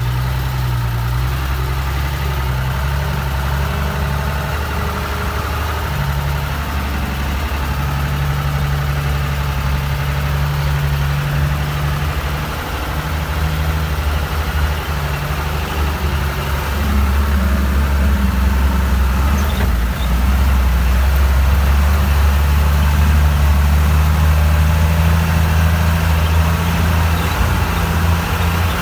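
Diesel engine of a Tata 1612 4x4 truck running steadily as the truck drives through a deep, flooded river, heard from inside the cab. It grows louder a little past the halfway point.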